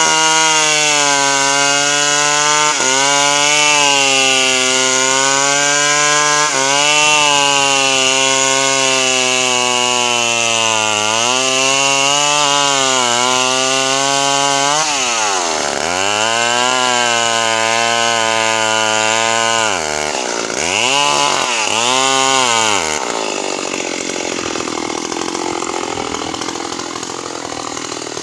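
Stihl MS 381 two-stroke chainsaw bucking a felled kapok log at full throttle, its pitch sagging and recovering under load. About halfway through, the throttle is let off and opened again several times, with deep drops and rises in pitch, and the saw runs quieter near the end.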